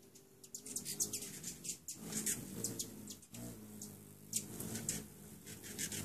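Several hummingbirds at a nectar feeder: a low, layered hum of beating wings with many quick, high chirps and chips scattered over it.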